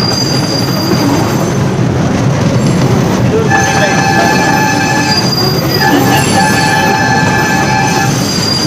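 Small joy-ride passenger train running along its track, heard from aboard an open carriage: a steady rumble and rattle of wheels on rail. From about halfway through, a steady high squeal sets in as the wheels round a curve, breaking off briefly in the middle before carrying on almost to the end.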